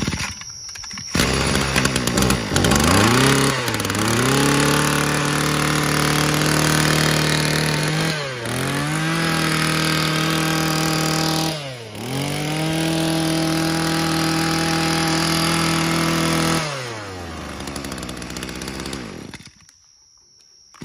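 Mitsubishi TBE27 brush cutter's 27 cc two-stroke engine starting about a second in, then revved to full throttle and held three times with brief drops in between. It falls back to idle and cuts off near the end.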